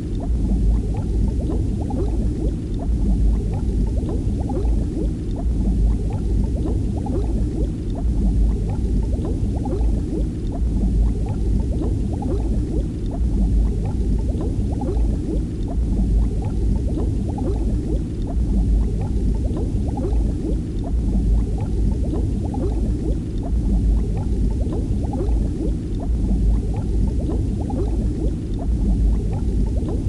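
Continuous bubbling and gurgling of water, thick with small bubble pops over a steady deep rumble.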